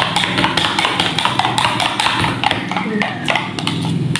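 Raw eggs being beaten in a plastic bowl with a spoon: a fast, steady run of light clicks as the spoon strikes the bowl, several a second.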